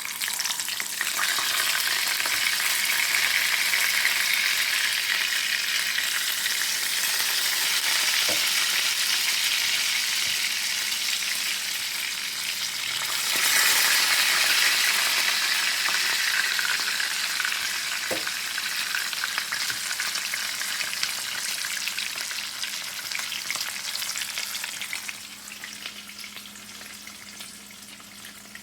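Food sizzling in hot oil in a pan, loud from the start, swelling again about halfway through and dying down near the end.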